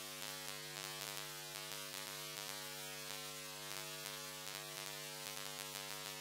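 Handheld electric angle grinder spinning freely off the work, a steady, even hum.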